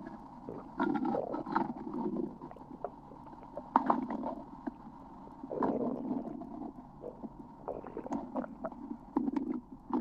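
Stomach growling: gurgling rumbles that come and go in irregular bursts of about a second, several times, with quieter gurgles between.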